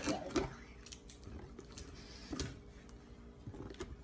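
A cardboard box being opened by hand: packing tape picked at and peeled, and a cardboard flap lifted, giving scattered small scrapes and clicks, the sharpest at the start and about halfway through.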